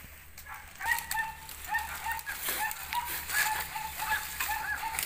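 A bird calling in a quick series of short, slightly falling notes, about three a second, starting about a second in, over rustling and knocks in dry grass.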